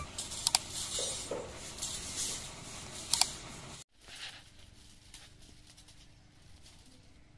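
Light metallic clinks and scrapes of bent steel wire spirals for chain-link fencing being handled on a concrete floor, with a sharper double clink about three seconds in. After a cut near four seconds, fainter scattered clinks and rustling of a chain-link mesh roll being rolled up.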